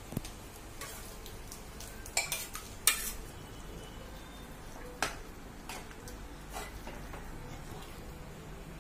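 Steel spoon clinking and scraping against a cooking pot and pan as thick cooked dal is scooped and stirred into onion-tomato masala: a few separate clinks, the loudest about three seconds in, over a faint steady background.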